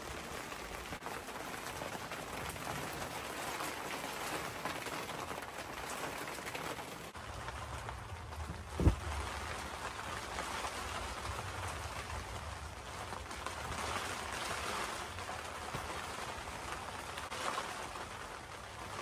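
Steady rain falling, with a single thump about nine seconds in.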